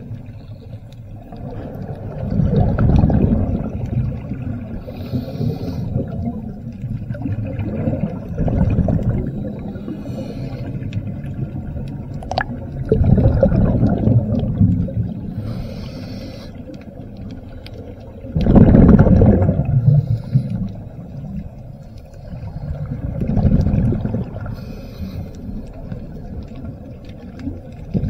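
Muffled low rushing and surging of water picked up by a camera in or at the water, swelling about every five seconds, with brief patches of hiss.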